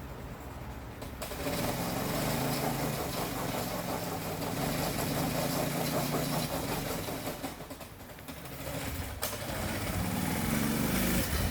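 Mini bike's small single-cylinder engine running, coming in about a second and a half in, easing off around eight seconds and picking up again near the end.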